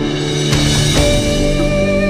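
Background music: instrumental notes with some drum strokes, the notes changing about half a second and a second in.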